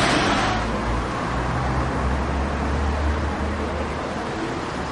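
Steady low rumble of street traffic in outdoor city ambience, swelling slightly mid-way, with a voice trailing off in the first half second.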